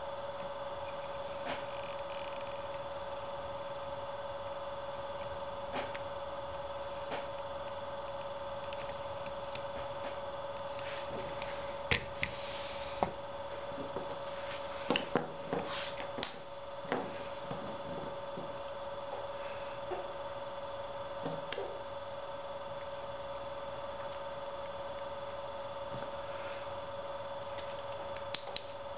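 Steady electrical hum, with scattered small clicks and taps of metal pen parts being handled and set down on a workbench; most of the clicks come around the middle.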